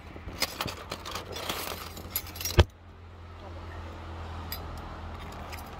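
Close handling noise: rustling and light jingling clicks for about two and a half seconds, ending in a single sharp knock, then a steady low hum.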